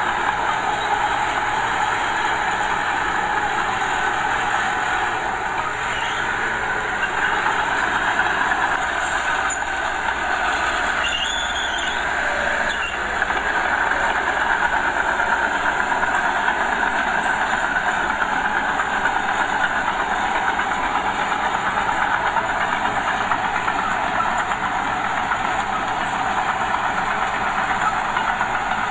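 Diesel engine of a small Komatsu bulldozer running steadily as it works pushing soil, its low note shifting twice.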